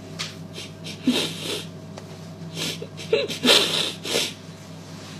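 A person's voice in a few short breathy bursts over a steady low hum.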